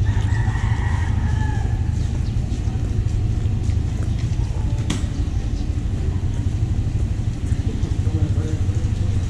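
Steady low rumble of a running engine or motor in a wet city alley. A brief pitched call or voice sounds in the first two seconds, and a single sharp click comes about five seconds in.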